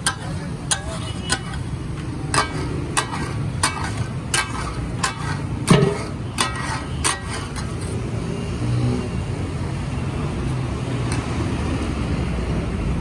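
Steel spatula blades striking and scraping a large flat steel tawa griddle as taka tak organ meats are chopped in butter: a run of sharp metal clacks, about two a second, over a steady low rumble. After about seven seconds the strikes come more sparsely.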